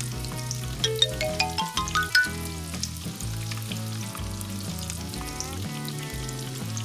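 Frying sizzle sound effect, a steady hiss, laid over background music; a quick rising run of notes sounds about a second in.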